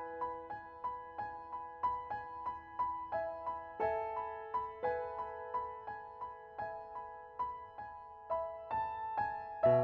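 Soft background piano music: a steady run of single struck notes, about two or three a second, each ringing and fading.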